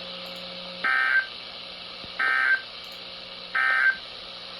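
Emergency Alert System SAME digital data tones: three short, shrill bursts about a second and a half apart over a steady background hiss. This is the end-of-message code that closes an EAS alert.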